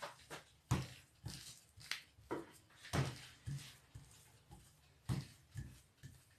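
Wooden rolling pin rolling out yeast dough on a countertop: a series of irregular soft knocks and thuds about every half second as the pin presses and bumps down, with a short pause about four seconds in.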